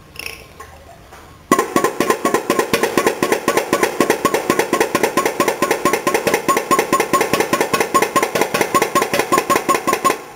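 Homemade putt-putt (pop-pop) boat engine, a shoe-polish-can boiler with copper tubes heated by a flame, starting up about a second and a half in and popping rapidly and evenly, about six pops a second.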